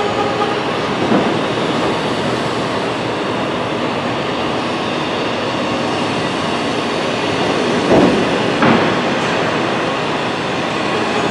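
Steady loud rumbling rattle, with a louder knock about a second in and two more close together near eight seconds in.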